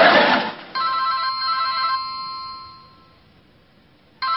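A telephone ringing twice: a steady electronic ring starts about a second in and dies away by about three seconds, then a second ring starts just before the end.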